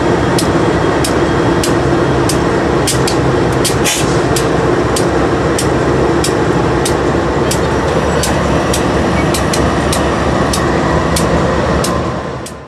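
Union Pacific diesel-electric locomotives passing close at the rear of a long freight train: a loud, steady diesel engine drone with regular clicks from the wheels on the rail, about two a second. The sound drops away suddenly near the end.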